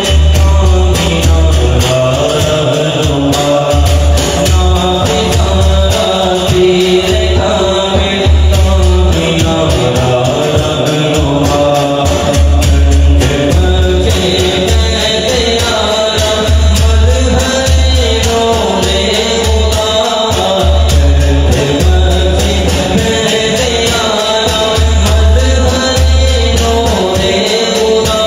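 A man singing a manqabat, an Urdu devotional praise song, solo into a microphone in a long, melismatic chant-like melody. A deep bass sound sits beneath the voice.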